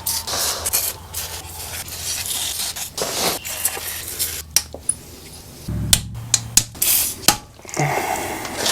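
Metal hand tools and parts clinking and clattering in irregular, scattered clicks during disassembly of an ATV engine, with a brief low rumble about six seconds in.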